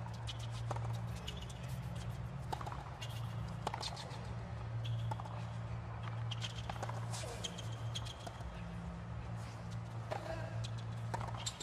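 Tennis rally on a hard court: many sharp clicks of the ball being struck by rackets and bouncing, with players' footsteps, over a steady low hum.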